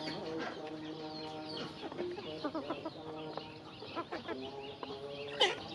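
A flock of chickens clucking steadily as they feed, several birds calling over one another, with scattered sharp clicks of beaks pecking the feed. One louder falling call stands out near the end.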